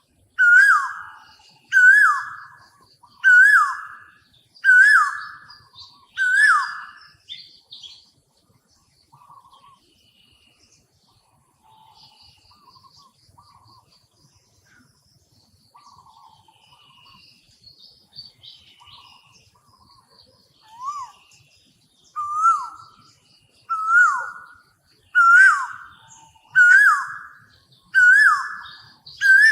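A bird calling over and over, a loud whistled note that swoops up and then down, repeated about every second and a half. Midway the calls stop and softer, scattered chirps go on. The loud repeated calls start again near the end.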